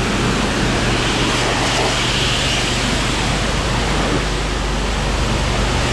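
High-pressure water spray hissing steadily from a 10½ GPM pressure washer during a rinse, over the constant low hum of the washer's engine.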